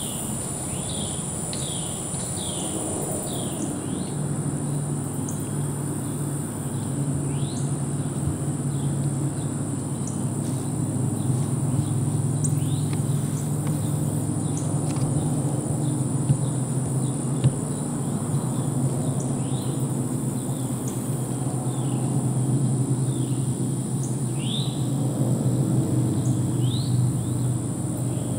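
Evening insect chorus, a steady high buzz, with a bird repeating short downward chirps in runs and a steady low hum underneath from about four seconds in.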